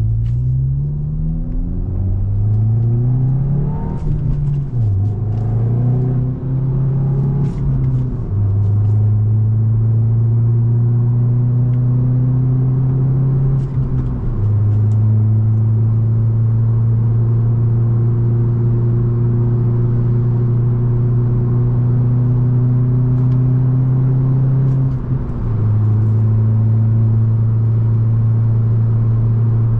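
Hyundai i20 N's turbocharged four-cylinder engine pulling hard through the gears, its pitch rising and dropping back at each upshift in the first several seconds. It then runs at a steady, high cruising speed, with two brief dips where the driver lifts off or changes gear.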